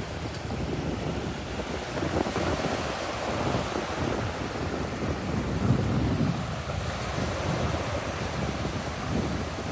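Gusty wind rumbling on the microphone over the wash of small waves breaking along the shore.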